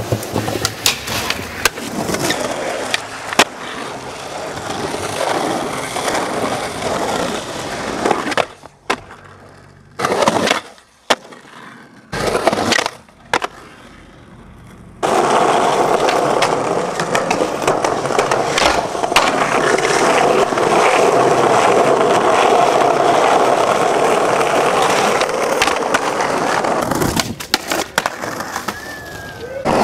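Skateboard wheels rolling on concrete and asphalt, with sharp tail pops, trucks grinding along rails and ledges, and board landings clacking. A much quieter stretch in the middle is broken by a few short bursts before the rolling comes back loud.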